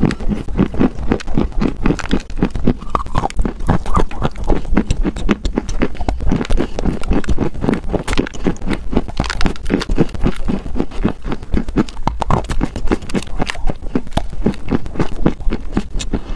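Close-miked chewing of a mouthful of dry clay: a steady run of rapid, sharp crunches, several a second, with the microphone held right at the lips.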